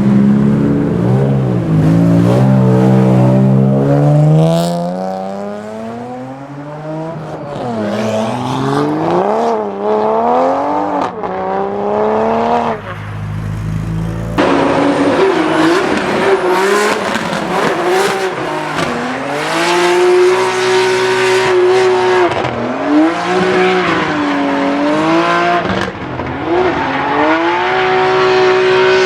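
Tuned Toyota GR Supra Mk5 engine revving hard while drifting, the note rising and falling over and over and held high for stretches, with tire squeal. An abrupt cut a little past halfway jumps to another run.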